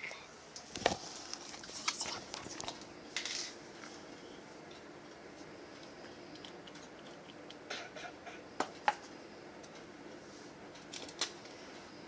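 Scattered light clicks and taps of a plastic glue bottle and mixing container being handled, in a few short groups with a brief rustle about three seconds in, over quiet room tone.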